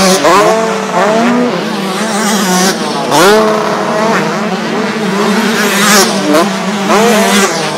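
Several motocross bikes racing, their engines revving up in repeated rising sweeps as riders accelerate and change gear, with one engine overlapping another.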